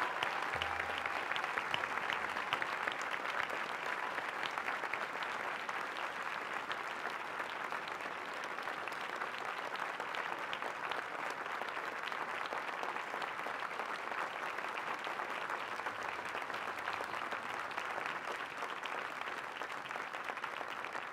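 Sustained applause from a large crowd: a dense, steady patter of many hands clapping.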